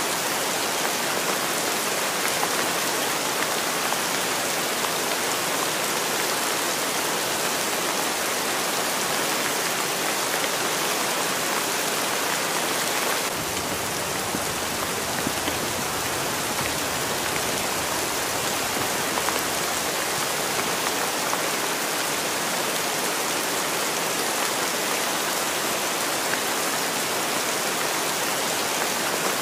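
Steady rain falling on a surface, an even hiss of drops. The sound shifts slightly about thirteen seconds in.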